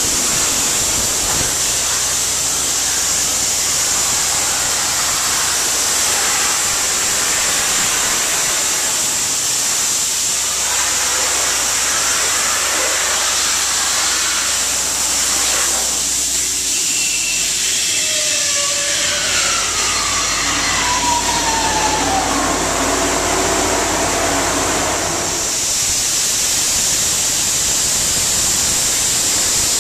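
Soda Works Buster Blaster 100 soda blaster firing baking soda through its nozzle on compressed air: a loud, steady hiss. Partway through, a low hum and a whine that slides down in pitch join it for several seconds.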